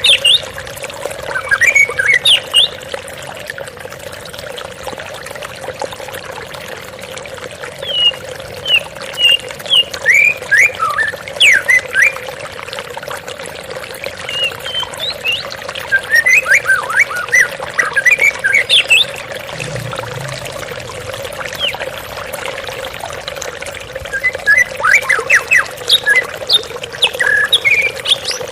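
White-rumped shama (murai batu) singing in several spells of quick, varied whistled phrases over the steady rush of running water.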